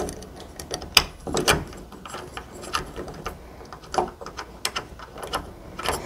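Metal door-handle hardware being fitted by hand: irregular small clicks and taps as the mounting bolts are threaded in and finger-tightened and the handle's rosette is worked against the door, the loudest clicks about one and one and a half seconds in.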